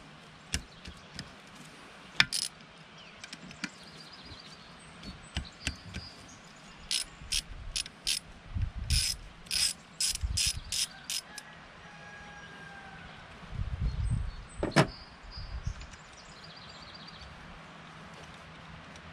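Hand ratchet clicking as it turns the bolts on a Mercruiser Alpha 1 Gen 1 stern drive's upper housing, in short uneven runs, densest in the middle. Near the end there are a few dull thumps and one sharp click.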